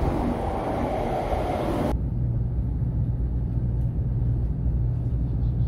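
Taiwan High Speed Rail 700T train pulling in along the platform, a broad rushing noise of wheels and air. It cuts off abruptly about two seconds in, leaving a low steady rumble.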